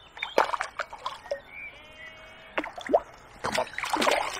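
A hooked fish, which the angler takes for a roach, splashing and thrashing at the surface as it is drawn to the landing net: a run of sharp, irregular splashes and drips.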